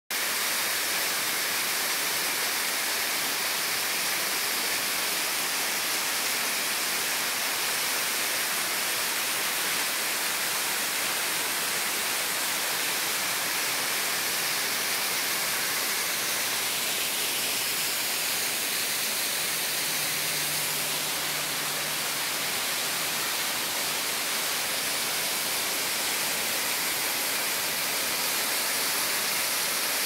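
Small waterfall splashing in thin streams down a rock face into a shallow pool: a steady, even rushing hiss.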